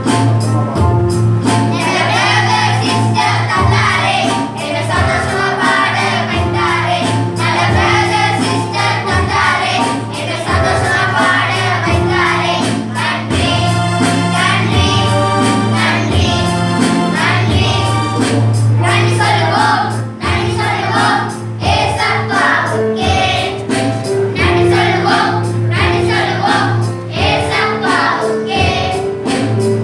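A choir singing a church song over instrumental backing, with a bass line and a steady percussion beat.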